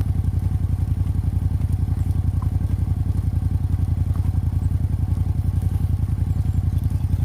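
An engine idling steadily: a low, even pulsing that does not change.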